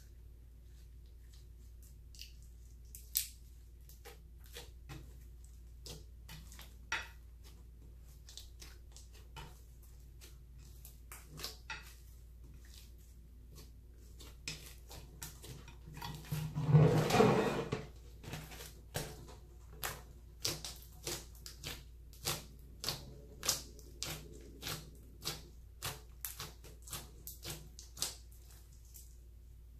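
Clear slime mixed with eyeshadow being worked by hand: a run of sticky clicks and small pops, with a louder, denser squelching stretch about halfway through.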